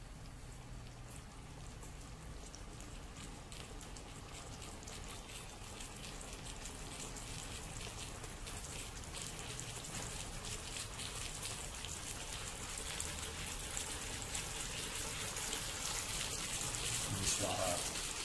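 Beef steaks sizzling in oil on the hot plate of an electric grill pan: a steady crackling and spitting that grows gradually louder.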